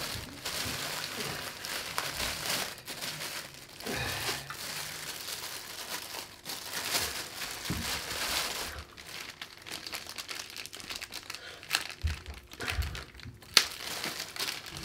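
Plastic packaging crinkling and rustling as the TV's remote control is unwrapped, irregular and ongoing, with a few short knocks near the end.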